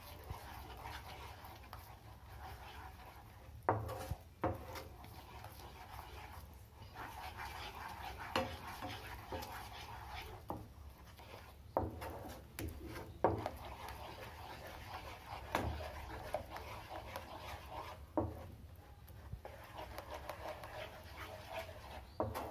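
A spatula stirring and scraping a thick mixture of reduced milk and milk powder around a nonstick frying pan, working the powder in so it blends without lumps. There is a steady rhythmic swishing, with a dozen or so short knocks as the spatula hits the pan.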